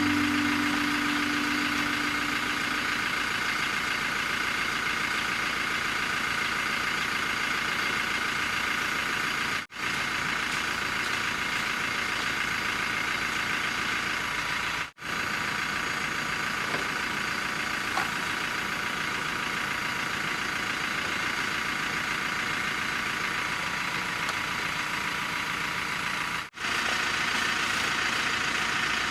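Steady rain falling, an even hiss that drops out briefly three times.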